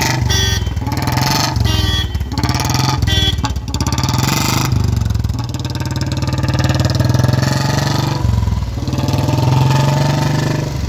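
Royal Enfield Bullet's single-cylinder engine running, blipped on the throttle several times in the first four seconds and then running more steadily, with a brief dip about eight seconds in.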